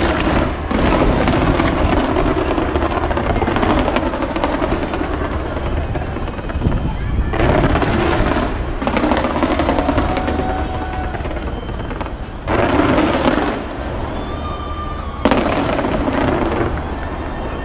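Fireworks display going off in dense, continuous barrages over the chatter of a large crowd, with louder bursts that start suddenly about seven, twelve and fifteen seconds in.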